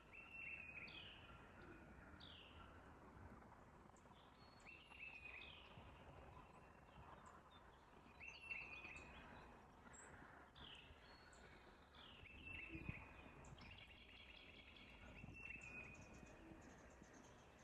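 Faint bird calls over a low steady background noise: a short call that drops in pitch and then holds a note, repeated about every two seconds.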